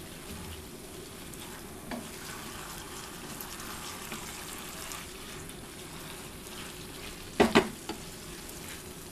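Soaked rice, chicken and potatoes sizzling in a pot as they are stirred together at the start of frying, with two sharp knocks near the end.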